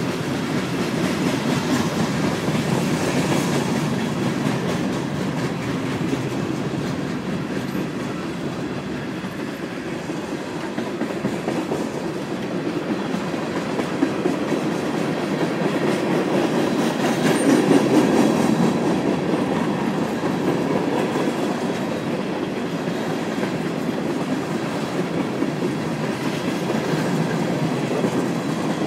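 Freight cars of a passing train rolling by: a steady rumble of steel wheels on rail that swells louder a little past halfway, with one sharp knock just before that.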